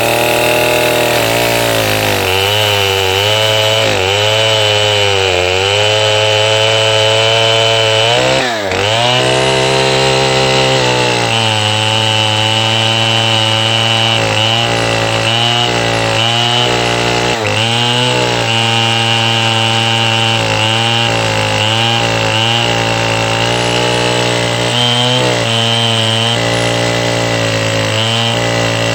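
FARMMAC F070 105cc two-stroke air-cooled chainsaw running at high revs while cutting wood. The engine pitch repeatedly sags and recovers under load, with a brief dip about eight seconds in.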